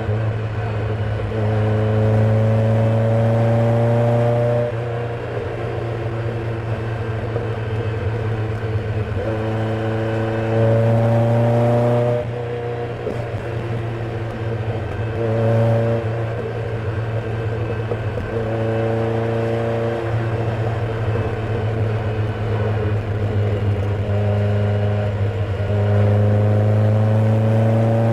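Car engine revved repeatedly from idle, each rev held for a few seconds with the pitch rising slightly before dropping back. The engine is misfiring, which the owner shows along with flames from the exhaust.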